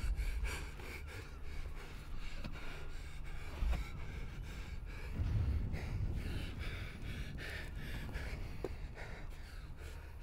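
A man breathing hard and gasping in short, irregular breaths, over a low rumble.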